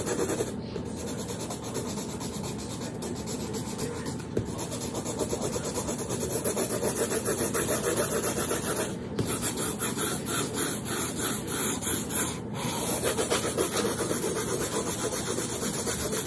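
Pencil scratching on paper in quick back-and-forth strokes, getting busier and louder from about six seconds in, with two short pauses.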